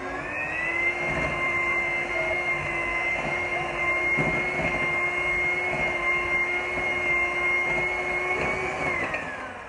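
Electric hand mixer beating butter and sugar in a glass bowl: a steady motor whine that rises in pitch as it speeds up in the first second, holds steady, then drops away near the end as it is switched off.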